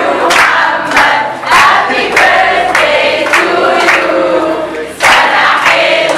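A crowd singing and chanting together while clapping in time, a steady beat of claps somewhat under two a second.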